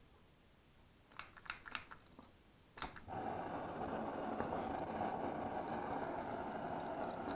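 A few sharp clicks, then a gas torch lights about three seconds in and burns with a steady rushing hiss, heating a spark plug to burn off the fuel fouling of a flooded plug.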